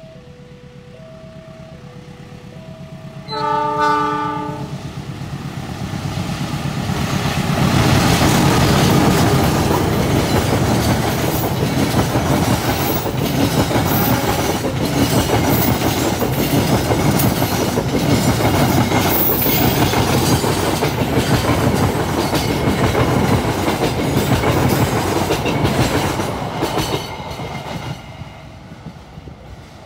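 Level-crossing alarm sounding its alternating two-note chime, then a short train horn blast about three seconds in. A train then passes close by, with loud rumbling and wheels clattering over the rail joints for about twenty seconds, fading near the end as the crossing chime is heard again.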